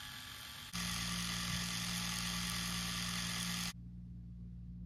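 Battery-powered K'nex toy motor and gearing running steadily with a whirring hiss and a low hum, starting abruptly under a second in and cutting off suddenly about three seconds later.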